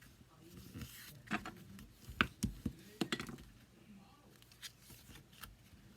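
Cardstock being handled and pressed down on a craft desk: brief paper rustles and a few light taps and clicks, mostly in the first half.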